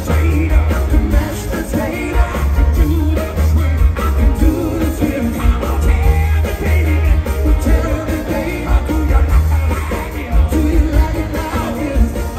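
Live rock band playing loud through an arena PA: two male lead singers singing over drums, bass guitar, a horn section and backing vocalists, with heavy bass.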